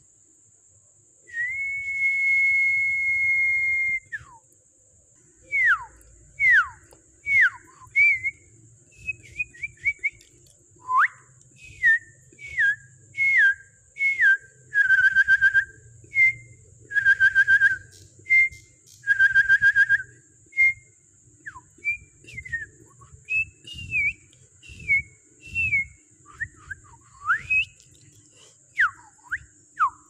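Clear whistling: one long steady note about a second in, then a quick run of short downward-sliding whistles, broken by three buzzy trilled notes midway.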